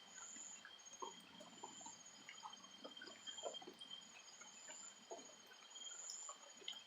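Faint outdoor night-time-style ambience: a steady high-pitched trill with a pulsing, even higher one above it, and scattered small drips or plops throughout.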